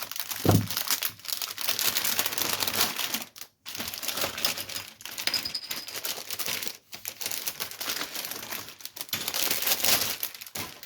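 Plastic packaging crinkling and rustling as it is handled and opened, in a continuous run of crackling with a couple of short pauses.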